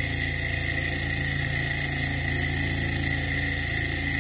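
Small hot-air Stirling engine running at a steady speed while turning a small DC motor used as a generator: an even, fast mechanical running sound with a steady high whine over it.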